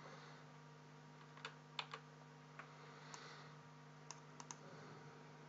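Near silence over a faint steady hum, broken by about eight faint, sharp clicks from a computer being worked, some in quick pairs, between about one and five seconds in.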